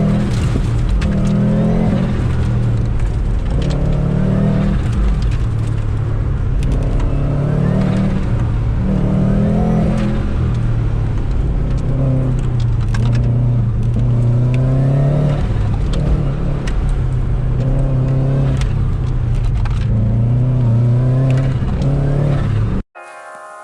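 Turbocharged Subaru GC8 Impreza flat-four engine heard from inside the car, driven hard: the engine note repeatedly rises and falls every second or two as the driver accelerates, lifts and brakes. It cuts off suddenly near the end and music takes over.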